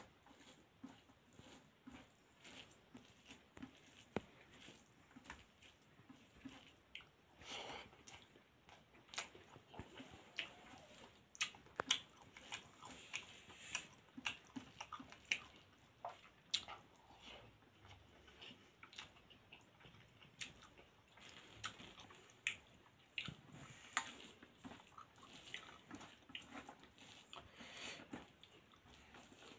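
Rice, dal and cabbage curry being mixed by hand on a steel plate and eaten, with chewing. Short, irregular clicks and wet smacks, faint throughout.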